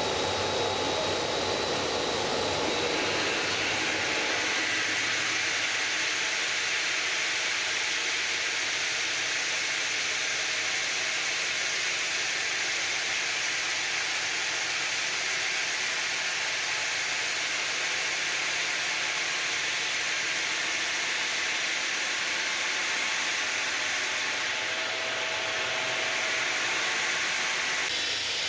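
Ring-system granite cutting machine cutting stone, a steady noisy rush that shifts higher about three seconds in and then holds even.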